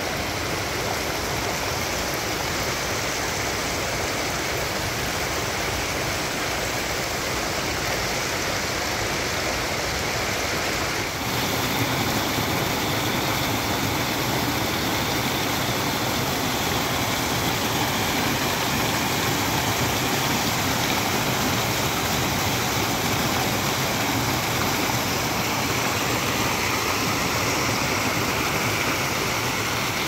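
Rushing water of a mountain spring, a steady even rush; it grows slightly louder about eleven seconds in.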